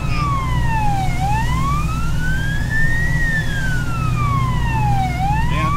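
Fire engine siren wailing, its pitch sliding slowly up and down in a cycle of about four seconds, over the steady drone of the Tatra CAS 30 T815-7 truck's diesel engine, heard from inside the cab on the way to a call.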